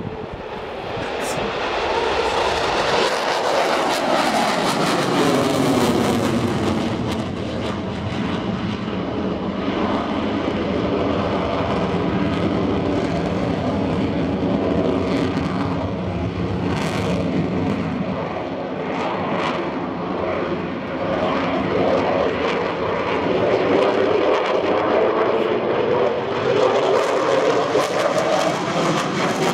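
Eurofighter Typhoon's twin EJ200 jet engines at full power, a loud steady jet roar through take-off, climb-out and a banked pass overhead. The pitch sweeps down a few seconds in as the jet lifts away, then climbs again near the end as it comes back past.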